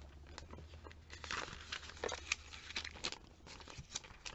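Glossy paper catalog pages being turned and handled: a run of quick, light rustles and crinkles, with a steady low hum underneath.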